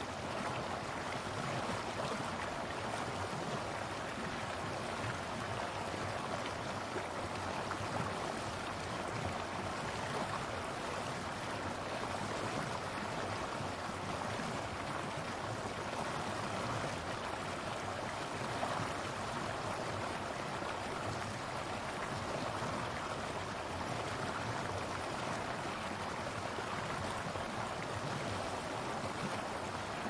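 Medium river rapids: water rushing and gurgling over rocks in a steady, even flow.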